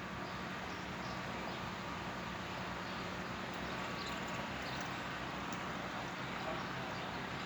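Steady outdoor background noise with a few faint, short high chirps about four to five seconds in.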